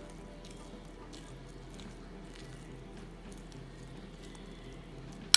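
Metal spoon stirring thick oats and semolina batter in a ceramic bowl: soft, wet squishing strokes about every half second, then a sharp clink of the spoon against the bowl near the end.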